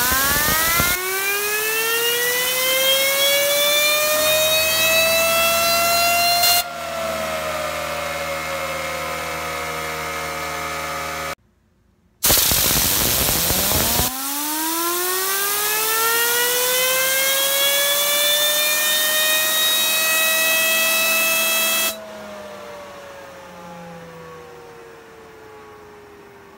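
Compressed air hisses from an air-gun nozzle onto an aluminum MechForce DeltaCore fidget spinner, and the spinner's whine climbs steadily in pitch as it speeds up. When the air cuts off, the whine slowly falls as the spinner coasts on its bearing. This happens twice, the second spin-up lasting longer.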